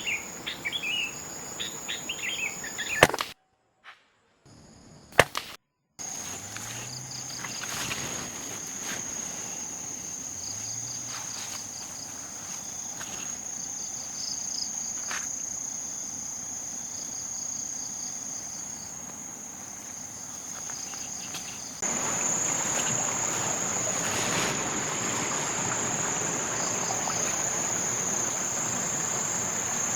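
Forest insects buzzing in a steady high-pitched drone, with a few bird chirps at the start. Two sharp snaps come about three and five seconds in, amid short gaps of silence, and a broad rushing hiss rises suddenly about two-thirds of the way through.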